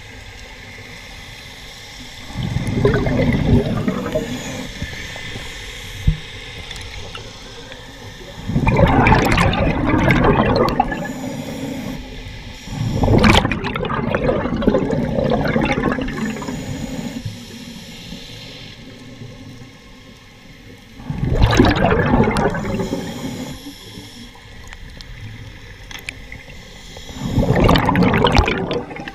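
Scuba diver's exhaled bubbles heard underwater: five loud surges of bubbling from the regulator exhaust, each two to four seconds long, roughly every five or six seconds, one per breath out, with quieter stretches between as the diver breathes in. A single sharp click about six seconds in.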